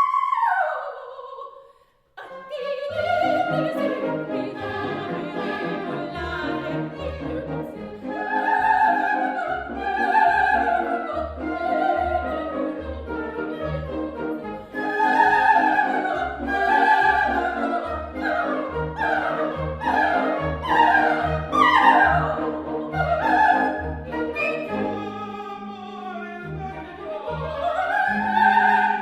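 Classical, opera-style background music. One piece fades out in the first second, followed by a brief silence; a new piece starts about two seconds in, with a steady pulsing bass under a rising and falling melody.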